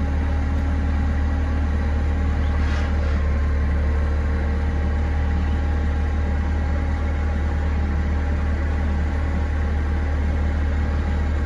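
Forklift engine running steadily, a constant low drone.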